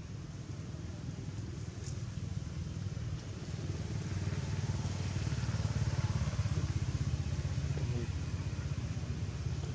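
A motor vehicle engine, likely a motorbike, running steadily in the distance with a low pulsing rumble that grows louder through the middle and then eases off.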